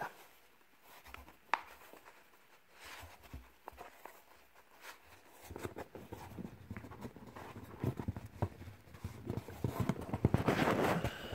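Fingers flicking through rows of trading cards packed in a cardboard box. A few scattered taps come first, then from about halfway there is a quick run of card-edge clicks and rustling, loudest near the end.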